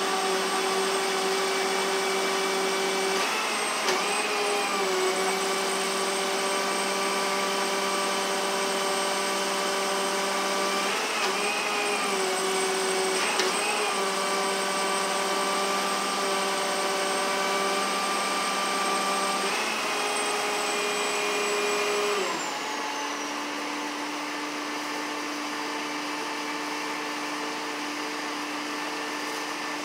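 A motor running steadily with a whine. Its pitch wavers briefly a few times, then it drops to a lower, quieter note about 22 seconds in.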